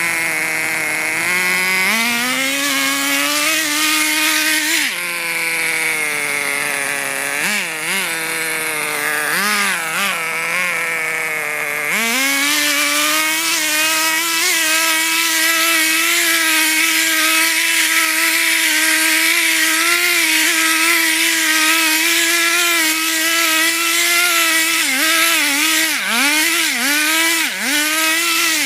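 Radio-controlled car's motor held at high revs in a burnout, a steady high-pitched running note that drops and climbs back sharply a few times as the throttle is eased off and reapplied.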